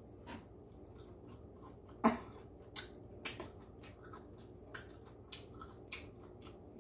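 A person chewing beef tripe close to the microphone: a run of short, wet mouth clicks and smacks at an irregular pace, the loudest about two seconds in.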